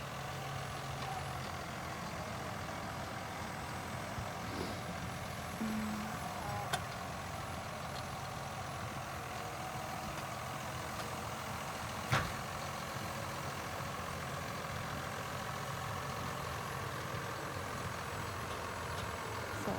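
Tractor engine running steadily, with a sharp knock about twelve seconds in.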